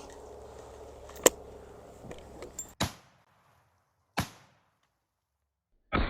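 Sharp metallic clicks and knocks from handling a break-open double rifle as its spent cartridges are taken out. The loudest click comes about a second in and a few smaller clicks follow. Two more single knocks, about four and six seconds in, stand apart in dead silence.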